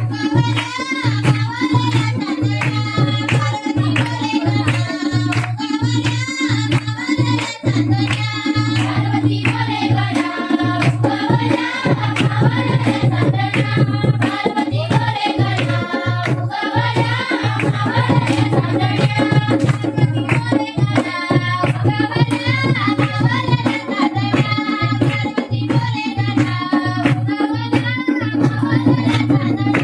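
Folk song sung by young voices over a fast hand-drum beat and a steady low drone.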